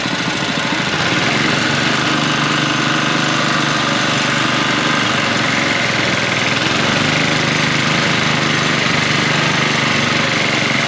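Sugarcane juice crushing machine running steadily, its motor and rollers making a constant mechanical drone. It gets a little louder about a second in.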